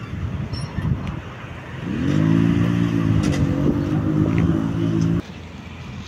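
A motor vehicle's engine: its pitch picks up briefly about two seconds in, then it runs steadily and cuts off abruptly about a second before the end.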